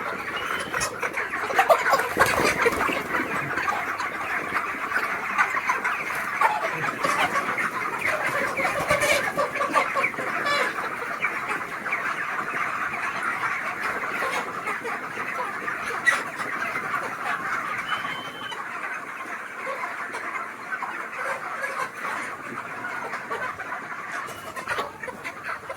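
A large flock of broiler chickens in a poultry shed, many birds clucking and chirping at once in a continuous din.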